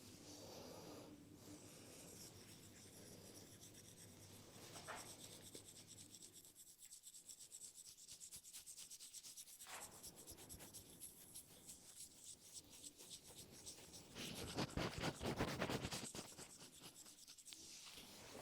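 Hands rubbing and scratching over hair and scalp during a head massage: a soft, dry rasp with fine rapid ticks, louder for about three seconds near the end.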